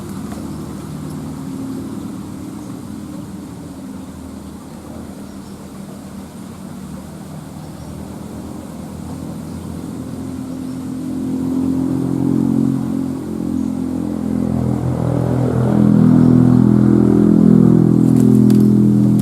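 A motor engine running, its steady hum growing louder over the second half.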